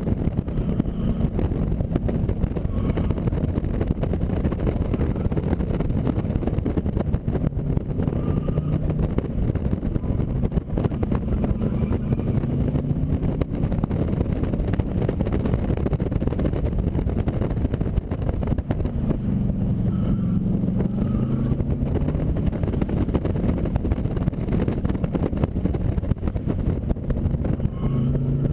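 AC Cobra Mk IV's V8 engine pulling hard, its revs climbing and falling again and again through gear changes, over a steady rush of wind and road noise.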